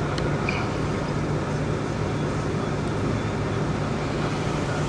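Steady engine and road noise of a moving car, heard from inside the cabin, with a constant low hum.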